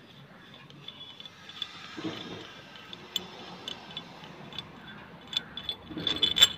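Light metallic clicks and clinks of a wrench working the long head bolts out of a Maruti Suzuki Alto AC compressor, with a few louder clinks of metal parts near the end.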